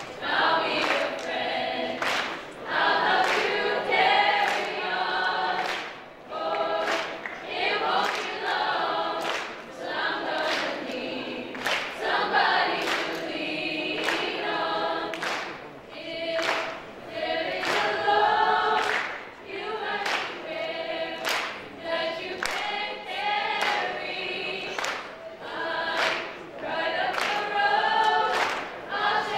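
A large group of students singing together as a choir, many voices in unison, with a sharp steady beat of about two strokes a second underneath.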